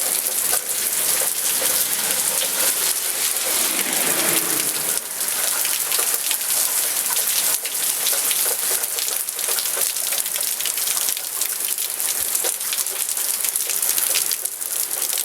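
Heavy downpour: a steady loud hiss of rain pouring onto hard surfaces, with dense pattering drops. A lower rushing swell rises and fades about four seconds in.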